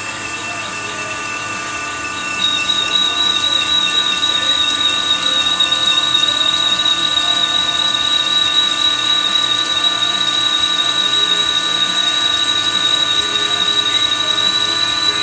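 A WWII-era manual lathe running and turning a cylinder head, with a steady whine. A high, slightly wavering squeal comes in about two and a half seconds in and grows louder.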